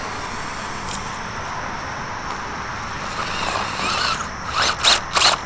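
A Redcat RC rock crawler's electric motor and drivetrain whining steadily under load as it crawls over rocks. The whine rises in pitch a few times, and a few sharp scraping clicks come near the end.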